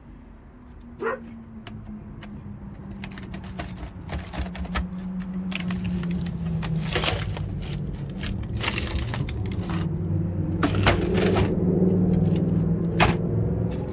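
Old, rotten door timber and panel being pried apart by hand: irregular cracks, knocks and crunching, with a few longer tearing crunches in the second half.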